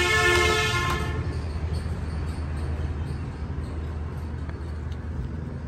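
A vehicle horn sounds with a steady pitched blare that stops about a second in. A steady low rumble of road traffic carries on underneath.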